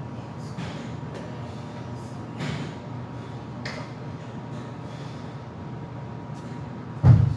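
Short, forceful breaths of a man squatting a heavy barbell for reps, with a loud low thud near the end.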